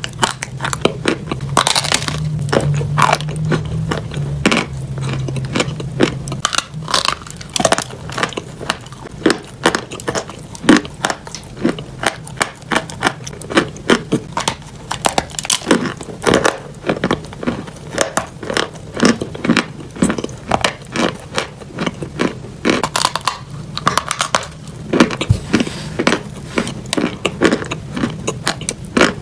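Chunks of dyed chalk being bitten and chewed close to the microphone: a dense, irregular run of sharp crunches and crackles.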